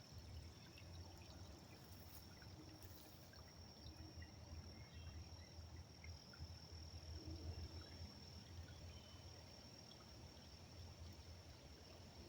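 Faint creek water trickling steadily, with a thin, steady high insect drone over it.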